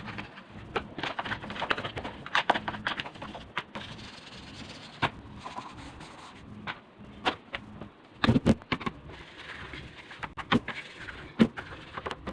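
Toothbrush scrubbing and scraping along the edges inside a fridge: irregular clicks and short rasps, with a few louder knocks about eight seconds in.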